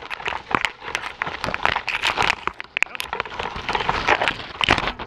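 Leaves and thin branches rustling and scraping right against a small quadcopter's onboard GoPro caught in a tree. It is an irregular run of many sharp snaps and rustles, with no motor sound.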